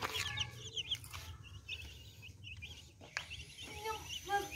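Young chicks peeping, with quick runs of short high chirps about a second long near the start and again about two seconds in. A few lower, deeper calls come near the end.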